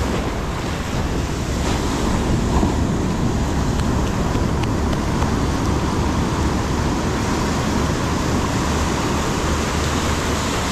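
Ocean surf foaming and washing in around the waterline, a steady wash of noise, with a low rumble of wind on the microphone underneath.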